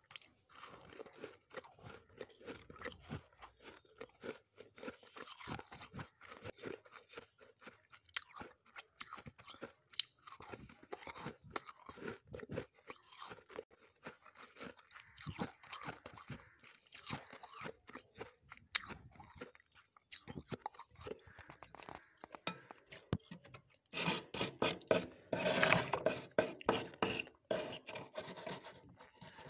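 Crisp, close crunching of freezer frost being chewed, a dense run of small crunches. A few seconds before the end it grows louder as a metal spoon digs into the packed frost.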